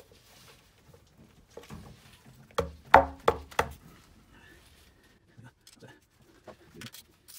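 Four sharp knocks in quick succession about three seconds in, with light clicks of metal parts being handled around them: the rear main seal housing being knocked into place over its locating dowel on the VR6 engine block.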